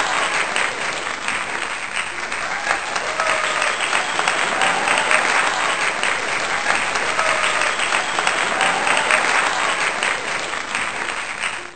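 Sustained applause, a dense steady clapping with faint cheering voices rising over it now and then, cutting off abruptly near the end.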